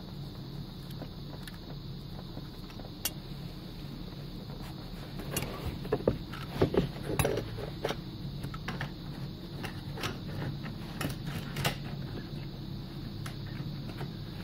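New fuel pump module and its plastic strainer being worked down into the fuel tank opening: scattered plastic clicks, knocks and rustles, busiest around the middle, over a steady low hum.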